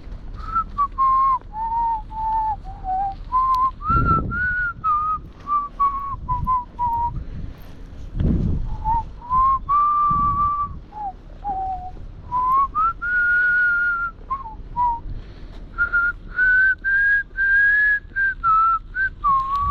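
A person whistling a tune as a single clear tone, moving between held and short notes of varying pitch.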